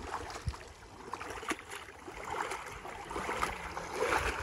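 Shallow lake water sloshing and splashing around a wading person's legs and a hand scoop net being lifted, getting louder near the end.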